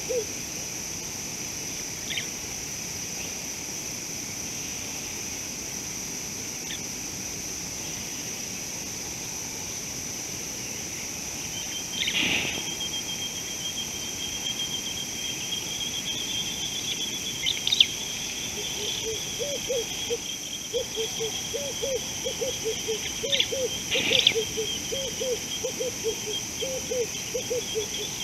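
Outdoor ambience of insects: a steady high chirring throughout, joined from about the middle by a steady high trill. In the last third a rapid run of short low calls, about two or three a second, comes in, with a few sharp clicks here and there.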